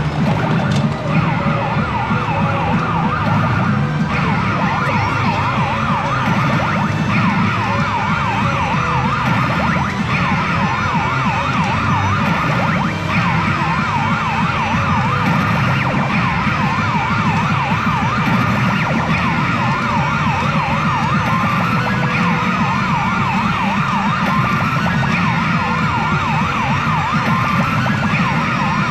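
Pachinko machine (PA Yasei no Oukoku GO 99ver.) sounding its electronic effects: a dense, continuous warbling of siren-like tones over a steady low background.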